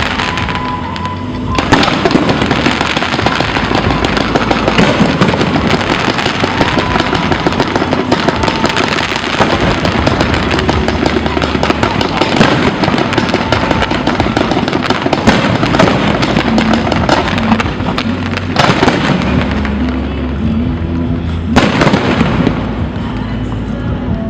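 Aerial fireworks display: a dense, continuous crackle of many shells bursting, with sharper bangs about two seconds in and twice near the end, over music playing underneath.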